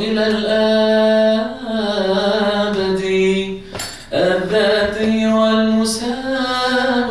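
A man's voice chanting a Coptic Orthodox liturgical hymn in long, slowly bending held notes. The chant breaks briefly a little past halfway with a short, sharp noise, then resumes.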